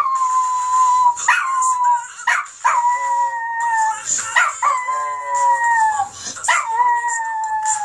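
Small dog howling along to a song: a run of about five drawn-out howls, each about a second long, starting with a quick upward sweep and then sliding slightly down in pitch.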